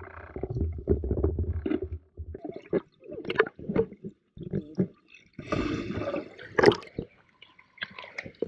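Seawater sloshing and splashing around a waterproof camera held at the surface, dipping in and out of the water. For the first two seconds there is a low muffled underwater rumble, then irregular splashes, the loudest about six to seven seconds in.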